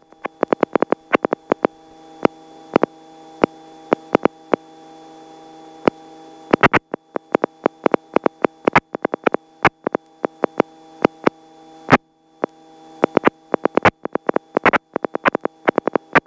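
Helicopter headset intercom feed: a steady hum of several tones, broken by irregular sharp clicks and crackles that come in clusters, with a brief dropout about twelve seconds in.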